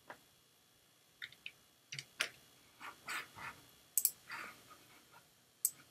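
Faint, irregular clicks of a computer mouse and keyboard, about a dozen scattered clicks.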